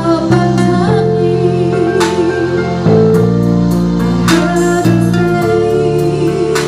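Music: a band playing held chords with guitar, the chords changing every couple of seconds, with sharp struck accents on top.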